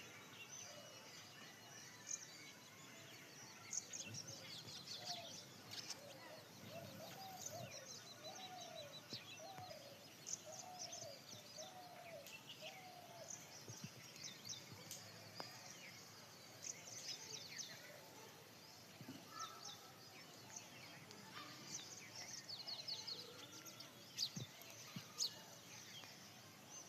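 Faint chorus of small birds chirping and twittering. In the middle comes a run of about eight lower, hooked call notes, roughly one a second.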